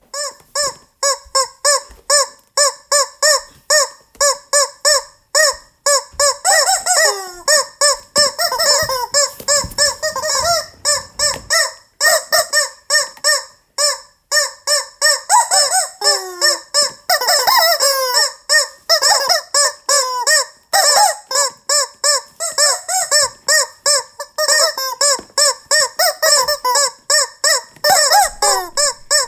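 Rubber chicken squeaks played fast and rhythmically as a tune: a steady pulse of repeated squeaks with higher squeaks moving in pitch above it.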